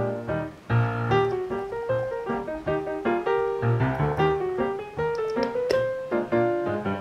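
Background piano music playing a gentle melody with chords.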